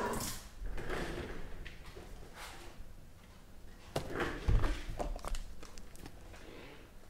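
A cardboard shipping case being handled and moved: scattered knocks and scrapes, with a heavier thump about four and a half seconds in.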